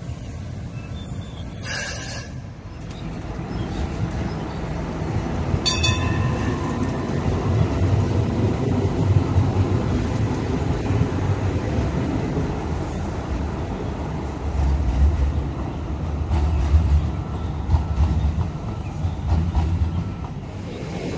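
Hong Kong Light Rail two-car train of Phase 1 vehicles moving off and rolling past close by, a low rumble of wheels and running gear that builds over a few seconds and holds. A short sharp noise about two seconds in, and a brief ringing tone about six seconds in.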